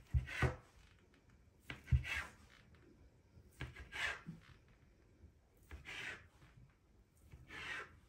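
A knife cutting through a soft rolled log of date-filled semolina dough on a countertop: a short scrape with a soft tap on the counter for each cut, five cuts about two seconds apart.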